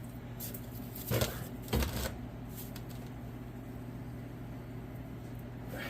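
A steady low hum with two short clatters about one and two seconds in, and another near the end.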